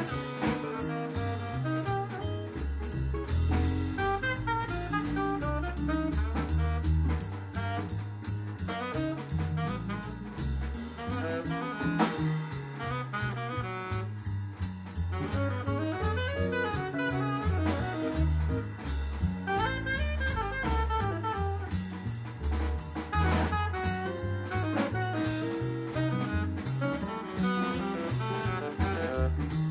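Small jazz band with tenor saxophone, guitar, upright bass and drum kit playing live; a fast melodic line runs over a walking bass, and the drums keep an even cymbal beat.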